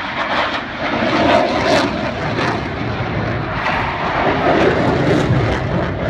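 Delta-wing fighter jet flying past overhead: a loud, steady rush of jet engine noise.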